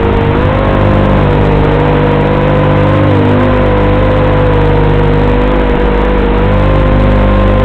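Racing quadcopter's brushless motors and propellers whining steadily in flight, the pitch drifting up and down a little as the throttle changes, heard from on board with a steady low buzz under it.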